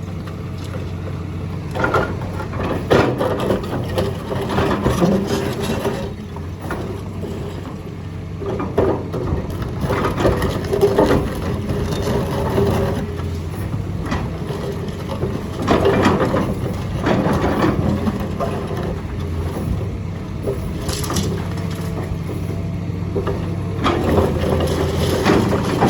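Hydraulic excavator's diesel engine running steadily, with irregular crunching and cracking as concrete is crushed, in bouts about 2, 3 to 5, 9 to 11, 16 to 17 and 24 to 25 seconds in.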